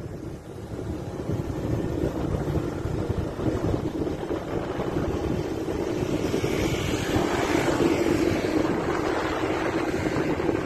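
A vehicle's engine running steadily while moving along a road, with wind rushing over the microphone that grows louder past the middle.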